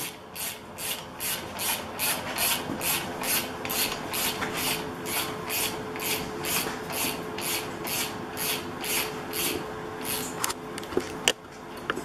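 Ratchet wrench clicking in quick, even strokes, about three a second, as it runs a motorcycle's front axle bolt in. The strokes stop near the end, leaving a couple of single clicks.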